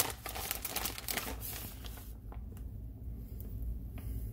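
Plastic packaging crinkling as a hand takes shredded cheese out of it for about the first two seconds, then a few faint clicks, over a steady low hum.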